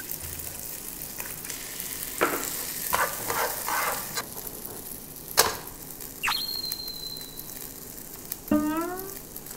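Rice and shrimp sizzling as they fry in oil in a nonstick pan, stirred with a wooden spatula. A sharp tap comes about halfway through, followed by a short high tone held for about a second and a half.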